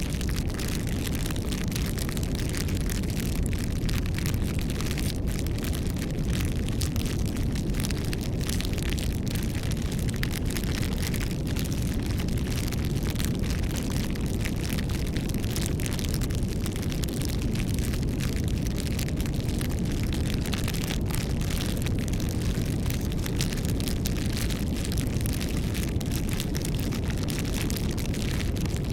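Campfire burning: wood crackling and popping in dense, irregular clicks over a steady low rush of the flames.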